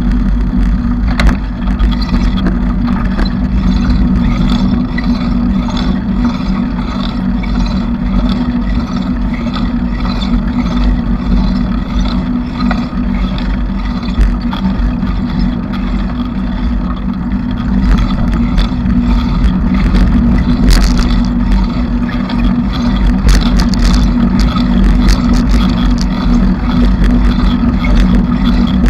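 Bicycle riding noise: a steady low rumble with many small rattles and clicks from the bike, thicker in the second half.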